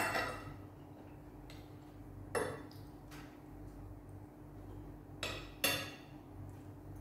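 Metal fork and spoon clinking and scraping against a plate while eating, four separate strokes: one at the start, one about two and a half seconds in, and two close together near the end.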